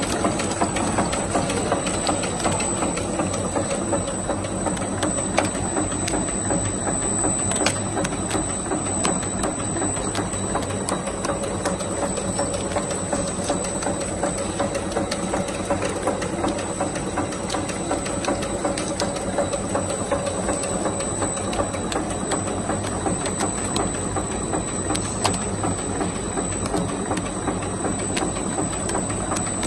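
Chewing gum wrapping machine running at production speed: a steady, dense mechanical clatter of rapid clicks that does not let up.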